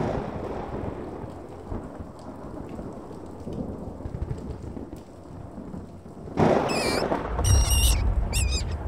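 Thunderstorm sound effect from a Halloween show's soundtrack: steady rain with rolling thunder. About six seconds in a loud thunder burst rumbles low, overlaid by three short high wavering cries.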